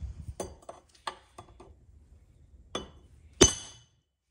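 Metal parts clinking and knocking as a parking brake shoe assembly is set into a steel bench vise: a handful of sharp separate clinks, the loudest a ringing metallic clank about three and a half seconds in.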